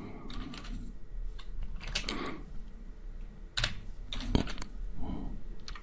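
Computer keyboard being typed on slowly: a handful of separate keystrokes, a second or so apart.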